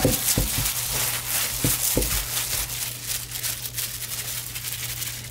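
Gloved hand packing and patting seasoned flour onto a turkey leg in a stainless steel bowl, a dry rustling with a few soft knocks against the bowl in the first two seconds, then the floured leg shaken over the bowl. A steady low hum runs underneath.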